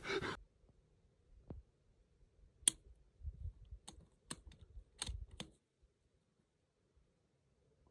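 A hunting rifle being handled, ready for a shot: about five small sharp clicks over some three seconds, the first the loudest, with soft low knocks among them.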